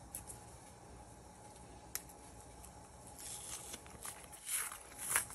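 Plantain skin being peeled off by hand: faint tearing and rustling in the second half, after a single small click about two seconds in.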